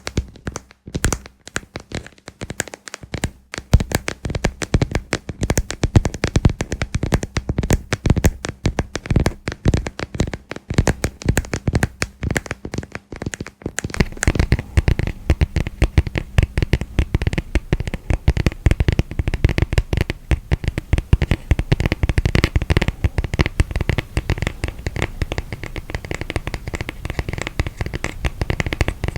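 Close-up ASMR tapping and scratching with the fingers on a moon-shaped lamp, changing about halfway through to dense, continuous scratching on a miniature tatami mat's woven rush surface.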